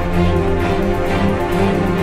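Background music: sustained held notes over a steady beat.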